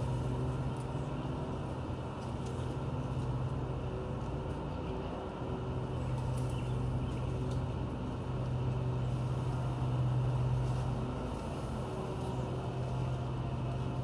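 Steady low motor hum, swelling and easing slightly in level, with a short dip about four to five seconds in.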